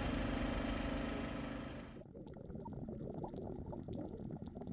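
A boat's engine runs with a steady hum. About two seconds in it breaks off and gives way to a quieter low rumble with scattered crackling clicks.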